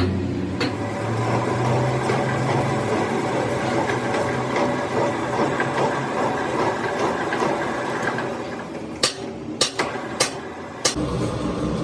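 Workshop metalworking noise: a low motor hum fades out over the first few seconds, then a steady clatter carries on, broken by four sharp knocks near the end.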